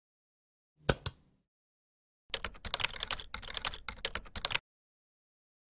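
Computer keyboard typing: a rapid, uneven run of key clicks lasting about two seconds, preceded a second or so earlier by two sharp clicks close together.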